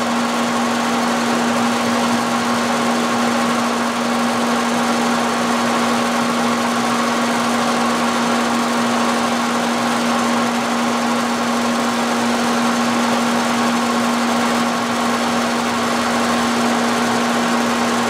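Vertical milling machine running with its spindle turning a 5/8-inch end mill, not yet cutting: a steady hum with one fixed low tone.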